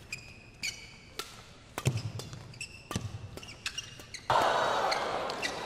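Badminton rally: sharp cracks of rackets hitting the shuttlecock and short squeaks of court shoes. About four seconds in, crowd noise from the arena rises suddenly and loudly.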